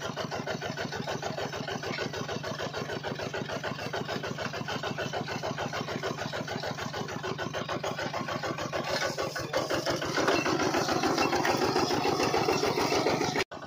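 Miniature engine-style water pump running with a rapid, even pulse while it sucks water from a muddy hole through its hose. It grows louder about ten seconds in, then cuts off abruptly near the end.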